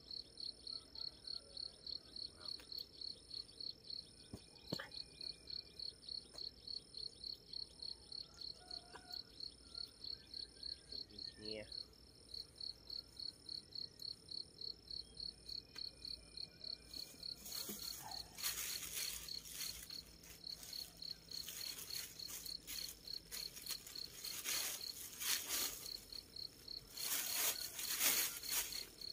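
A cricket chirping steadily, about three high chirps a second. From a little past halfway, loud crinkling of a plastic bag as bedding is pushed into it.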